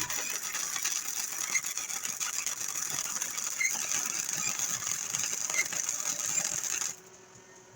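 Welder laying a weld bead on steel: a steady crackling hiss that cuts off suddenly about seven seconds in.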